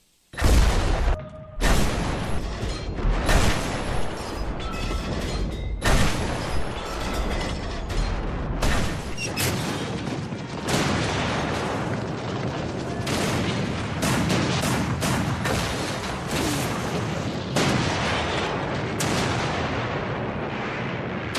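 Battle sound effects: rapid gunfire and repeated booming explosions, many sharp cracks following one another, broken by a brief gap about a second in.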